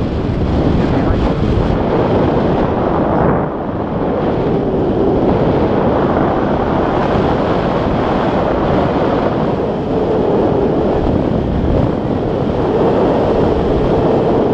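Wind rushing over the microphone of a camera held out on a pole during a tandem paraglider flight: loud, steady buffeting with a brief dip about three and a half seconds in.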